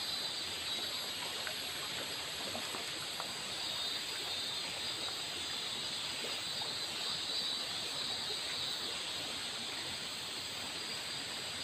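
Shallow river water running over rocks and snags, a steady, even rush.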